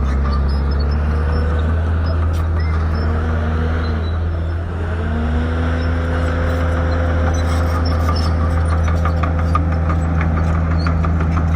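Shantui crawler bulldozer's diesel engine running steadily under working load. Its whine sags in pitch a little before halfway and then recovers and holds. A fast run of faint clicks comes in near the end.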